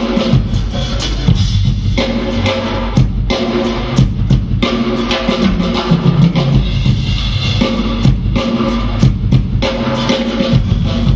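Drum kit played in a fast solo: dense snare and tom strokes with bass drum and cymbals, over held pitched notes underneath.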